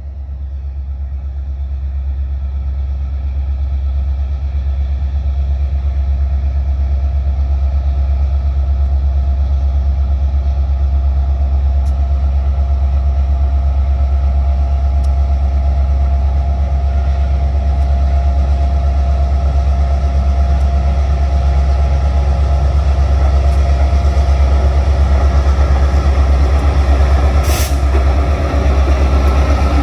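Diesel-electric freight locomotives approaching with a steady low engine rumble that swells over the first few seconds and then holds. A short sharp hiss comes near the end.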